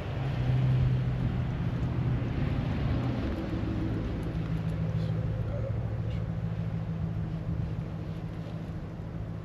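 A pickup truck driving past, loudest in the first second or two, over a steady engine hum that shifts in pitch a little after three seconds and then holds steady.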